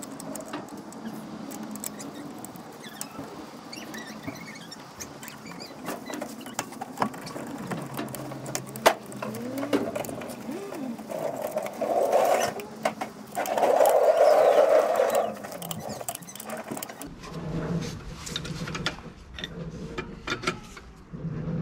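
Socket ratchet clicking in rapid runs as a car's wheel nuts are wound on and tightened. Partway through there are two louder rushing noises, the second lasting about two seconds.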